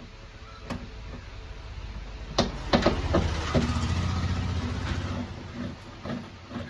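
Metal hand tools clicking and knocking against the tailgate's inner steel panel as a socket wrench works on its bolts, in a quick cluster of sharp clicks about two and a half seconds in. A low droning hum swells over the following couple of seconds and then fades.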